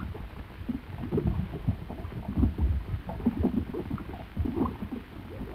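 Deep, irregular rumbling with rough low thuds: a sound effect standing for an underwater earthquake.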